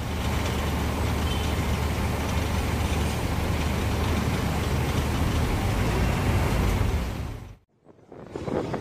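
Street traffic with a heavy vehicle's engine running close by: a steady low rumble under general road noise, cutting off suddenly near the end.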